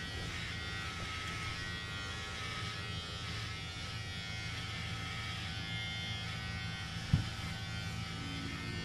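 Electric hair clippers buzzing steadily during a haircut. A brief thump about seven seconds in.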